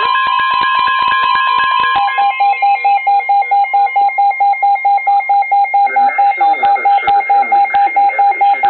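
Weather radios sounding a severe thunderstorm warning alert. For about the first two seconds a long steady tone mixes with a warbling tone and rapid clicks; then one radio takes over with a loud beep pulsing about four times a second, while the broadcast voice begins faintly underneath in the last few seconds.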